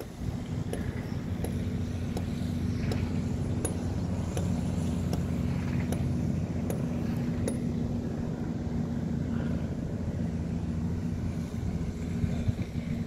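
Steady low engine drone, even in pitch, with scattered faint clicks over it.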